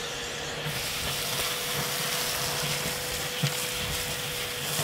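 Vacuum cleaner running with a steady hum and hiss, its hose nozzle sucking up loose grit and crumbled concrete from the floor of a concrete-lined furnace. The hiss gets brighter just under a second in.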